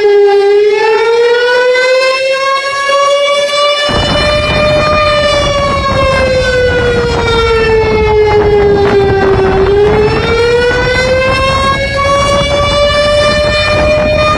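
Outdoor warning siren wailing in a slow fall and rise of pitch. A loud, steady rushing noise comes in abruptly about four seconds in and continues under it.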